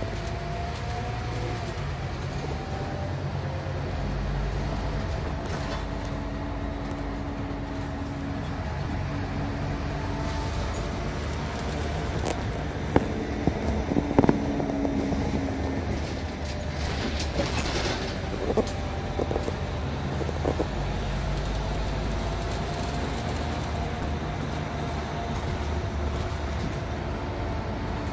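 City bus running, heard from inside the passenger cabin: steady engine and road noise with engine tones that slowly rise and fall, and a few sharp rattles and knocks around the middle.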